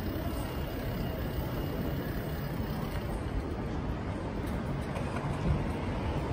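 Steady low rumble of wind buffeting the microphone of a camera riding along on a moving bicycle, with one brief thump about five and a half seconds in.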